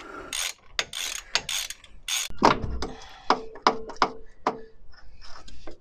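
Ratchet wrench clicking in short irregular runs, with light metallic clinks, as the driveshaft nuts are worked loose while a braced breaker bar holds the shaft from spinning.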